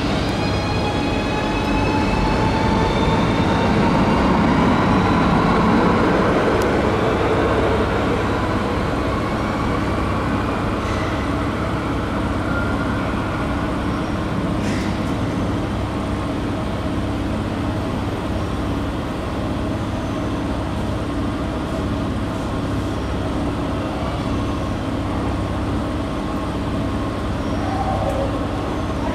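Electric Cercanías commuter train pulling away, its traction motors giving a whine of several tones that rise in pitch over the first several seconds. After that a steady low rumble and hum carries on.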